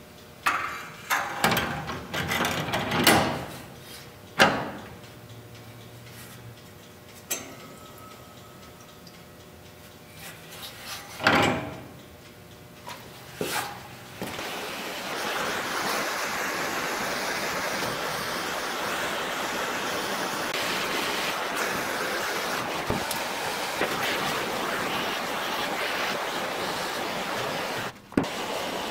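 A few clicks and knocks of metal parts being handled, then from about halfway a gas torch hissing steadily while a copper patch is soldered into the radiator's bottom outlet tube.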